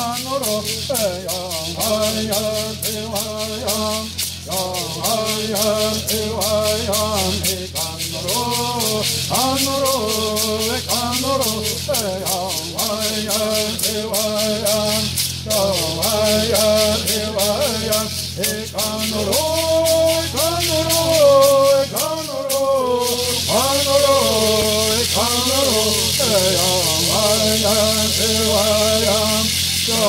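Traditional Southern California bird songs: singers chanting a melody in repeated phrases to the beat of shaken gourd rattles. About two-thirds of the way in, the rattles change from a steady beat to a continuous shake.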